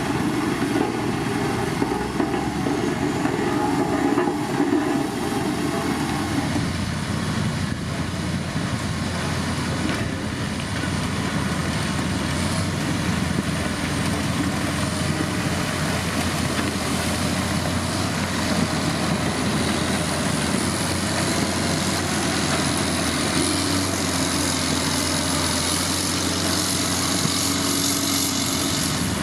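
Diesel engine of heavy road-construction machinery, a motor grader or road roller, running steadily under work. A thin high whine drifts slowly upward, and the low hum shifts about six seconds in.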